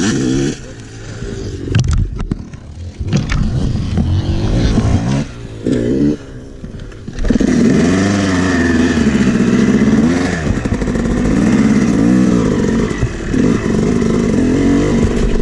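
Yamaha 250 two-stroke dirt bike engine being ridden. It is uneven for the first few seconds, blipping and dropping away, then from about seven seconds in it revs hard, the pitch rising and falling with throttle and gear changes.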